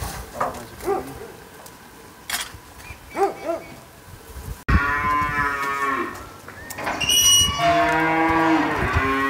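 Cattle mooing: a few short calls at first, then long, loud drawn-out moos through the second half.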